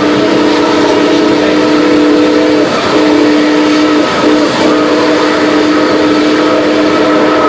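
Nickel Plate Road 765's steam chime whistle blowing, several notes sounding together. One blast ends a few seconds in, then comes a short blast, then a long one that holds to the end. Steady rolling rail and wheel noise of the moving train runs underneath.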